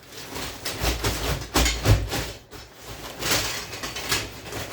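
Scrap copper pipe clattering and knocking as pieces are packed and pushed down into a sack, with a few dull thumps about one to two seconds in.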